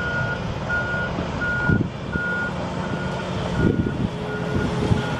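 Concrete truck reversing: its back-up alarm beeps steadily, about three beeps every two seconds, over the diesel engine running.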